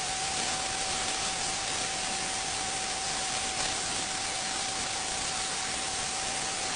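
Sandblaster blasting steadily: a continuous hiss of compressed air and abrasive with a steady whistle running through it.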